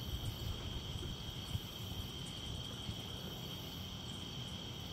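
Crickets chirping in a steady, high-pitched night chorus, over a low rumbling background noise.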